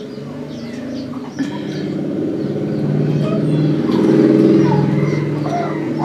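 A motor vehicle engine running steadily, growing louder to a peak about two-thirds of the way through and then easing off, with birds chirping faintly.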